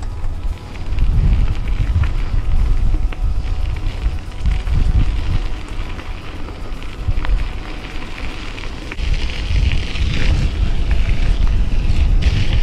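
Wind buffeting an action-camera microphone during a mountain bike ride, with the tyres crackling over rough ground. A rushing hiss builds near the end.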